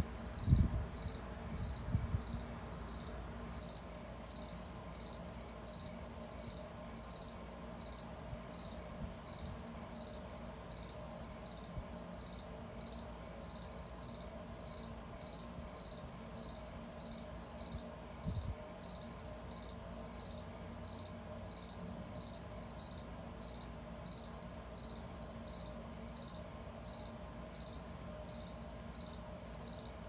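Crickets chirping steadily in an even rhythm, about two high chirps a second. A few low thumps come in the first couple of seconds and once more about 18 seconds in.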